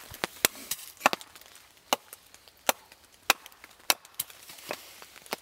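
Axe hewing a wooden spoon blank held upright on a chopping stump: about ten sharp chopping strikes of wood at an uneven pace.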